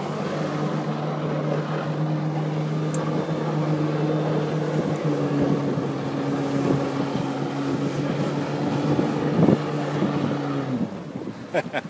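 Personal watercraft engine running at steady high throttle to pump water through a flyboard's hose, a constant drone over a hiss. About eleven seconds in the engine note drops away as the throttle comes off, followed by a few sharp clicks.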